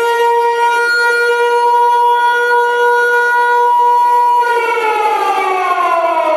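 Siren sound from the model truck's Beier USM2 sound module: one steady held tone that, about four and a half seconds in, starts to wind down in pitch.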